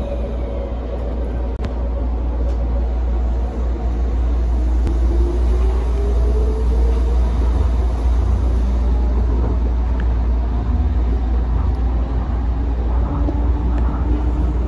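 Tokyo Monorail car heard from inside the cabin as it pulls away and accelerates: a steady low rumble from its rubber-tyred running gear on the track beam, with a faint motor whine rising in pitch for a few seconds.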